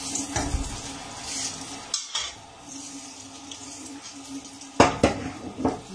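Metal pots and dishes knocking and clattering against a stainless-steel sink as they are washed up by hand, with a handful of sharp clanks, the loudest a little before the end.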